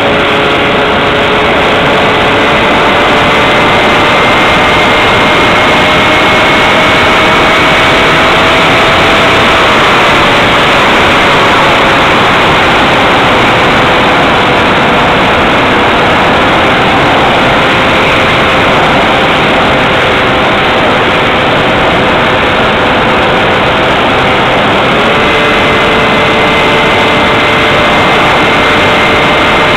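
Onboard audio of a Multiplex Xeno electric RC flying wing in flight: a loud steady rushing noise with a thin motor whine. The whine drifts up in pitch, sinks from about ten seconds in, and steps up again at about 25 seconds as the throttle changes.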